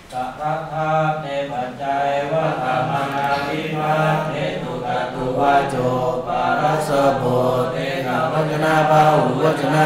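Chanting voice reciting on a steady, level tone that begins suddenly and carries on without a break.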